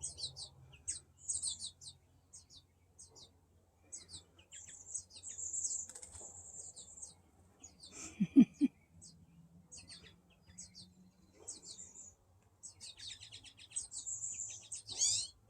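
American goldfinch fledgling giving rapid, high-pitched begging chirps in repeated bursts, the calls of a young bird pleading to be fed. A brief, louder, lower-pitched sound comes about eight seconds in.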